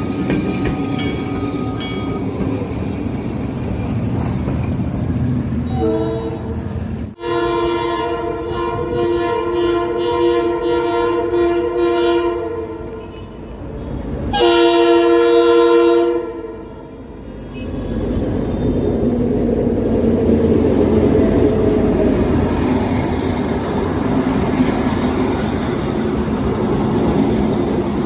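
G22W-AC diesel locomotive running, sounding its multi-note horn in a long blast of about six seconds and then a shorter, louder blast of about two seconds. After that a heavier low running rumble builds up.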